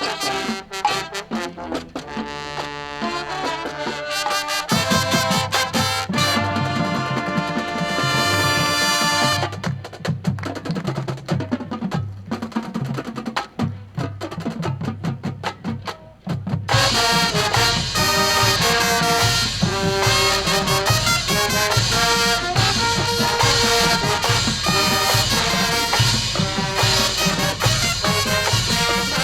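High school marching band playing its show, brass and percussion together. It starts with softer sustained chords, low brass and drums come in about five seconds in, and the full band comes in much louder over halfway through.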